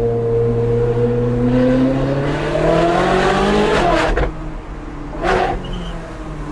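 Ferrari 458 Speciale's V8, fitted with an Fi aftermarket exhaust, heard from inside the cabin, accelerating hard with the revs climbing steadily. About four seconds in the revs drop off with a sharp crack, a second loud burst comes about a second later, and then the engine pulls again from lower revs.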